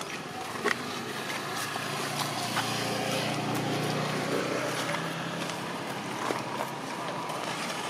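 A motor vehicle engine running steadily as it passes, growing louder in the middle and fading again, with a few faint clicks over it.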